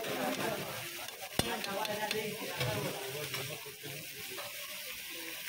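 Fish fillets sizzling in hot oil in a wide, shallow pan, with a steady hiss. A metal spatula and tongs scrape and turn the pieces, and there is one sharp clack of metal on the pan about a second and a half in.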